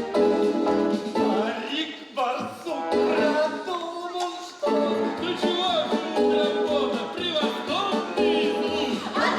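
Music from a stage musical, with voices singing over the accompaniment.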